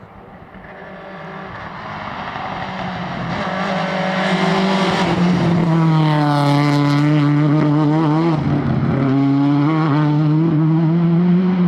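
Rally car engine approaching, growing steadily louder over the first few seconds. At full volume its pitch falls around the middle, cuts briefly, then picks up again and holds steady.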